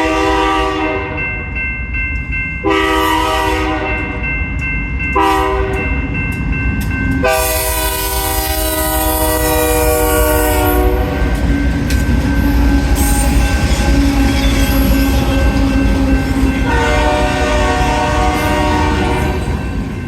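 GE freight locomotive's multi-note air horn blowing the grade-crossing signal (long, long, short, long) as the train passes close by, then a further blast near the end. Under it, the steady rumble of the locomotives and the clacking of wheels on rail joints.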